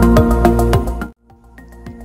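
Background music with a steady beat that cuts out about a second in, then comes back softer after a brief gap.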